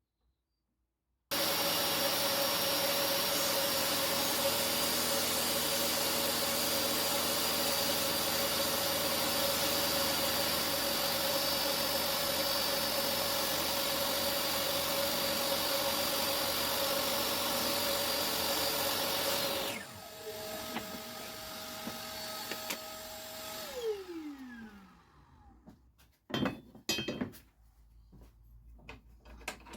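DeWalt DWE7492 job-site table saw running with a loud steady whine that starts abruptly about a second in. Around twenty seconds in it drops in level and its whine steps slightly higher, then the blade winds down with a falling pitch, followed by a few sharp knocks near the end.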